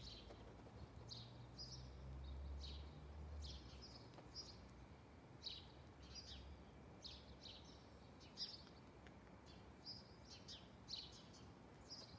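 Faint chirping of small wild birds: short high calls, about two a second, with a low rumble underneath for the first few seconds.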